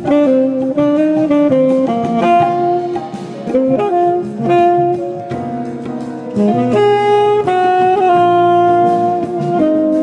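Saxophone playing a jazz melody of long held notes broken by quick runs.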